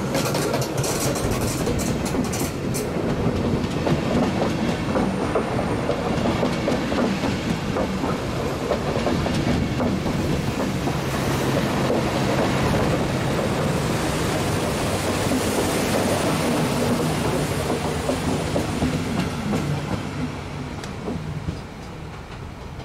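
Intercity train hauled by a DB class 101 electric locomotive rolling past close by, its wheels clacking over the rail joints as the long rake of coaches goes by. The sound dies away near the end as the last coach passes.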